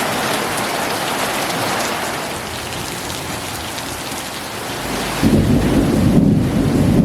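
Steady rain falling. About five seconds in, a low rumble of thunder comes in and becomes the loudest sound.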